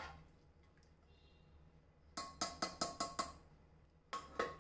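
Metal clinking on a pressure cooker: a quick run of about six sharp, ringing clinks, a short pause, then a few more as the lid is set onto the cooker.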